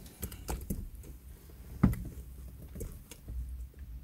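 Allen key being turned in a bolt on a headrest mount's plastic and metal arm: scattered small clicks and taps, with one louder knock about two seconds in.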